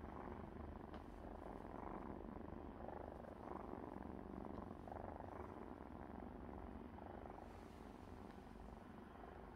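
A cat purring steadily, with a continuous low rumble that swells and fades in a slow, regular rhythm.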